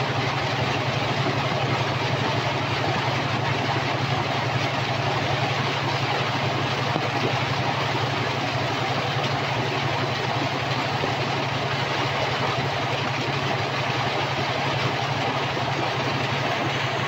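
Detroit DD15 diesel of a 2012 Freightliner Coronado running steadily, heard inside the cab as a low hum under a steady rushing noise.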